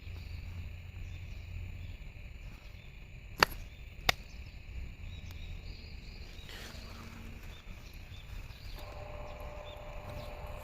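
Outdoor background with a steady high drone and low rumble, broken by two sharp clicks about three and a half and four seconds in. Near the end a steady hum comes up from the UNI-PEX loudspeakers of a municipal disaster-prevention radio station as the line opens, just before the evening chime.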